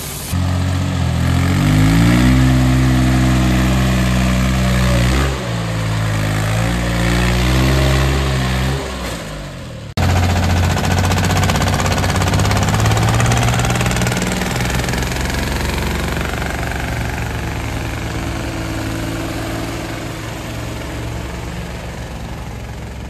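Small diesel mini-tractor engines. In the first part an engine is revved, its pitch rising and falling twice. After a sudden cut about ten seconds in, a tractor engine runs steadily and slowly gets quieter.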